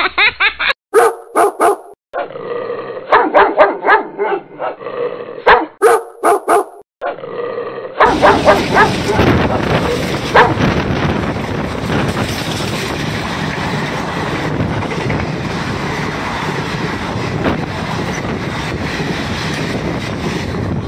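A dog barking in short, chopped-up bursts for the first eight seconds or so, then the steady rumble and rattle of a passenger train's coaches rolling past on the rails, with a few knocks as it begins.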